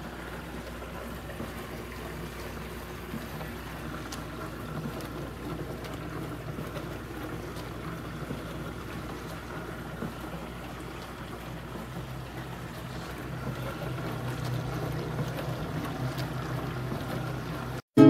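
KAPAS portable countertop dishwasher running a wash cycle: a steady motor hum with water spraying inside the tub, growing a little louder about three-quarters of the way through.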